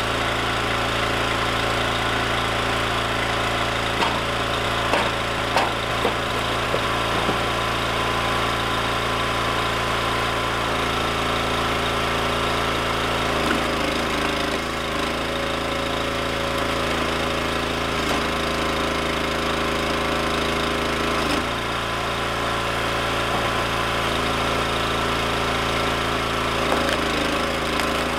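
Engine of a Wolfe Ridge hydraulic log splitter running steadily, its note changing for several seconds midway as the ram works through a round. A few knocks of logs being handled about four to six seconds in.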